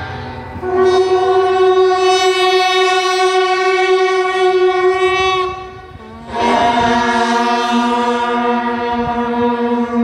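Brass horns sounding two long held notes in unison, each about five seconds, the second lower than the first, as the horn call of a drum-and-horn fanfare.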